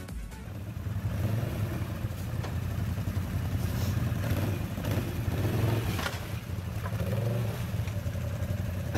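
A 4x4 ATV engine revving up and down repeatedly under load as the quad climbs and churns through deep mud.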